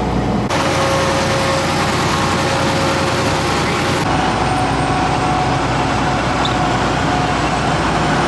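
Steady running and road noise of a semi-truck on the move. The noise changes abruptly about half a second in and again about four seconds in.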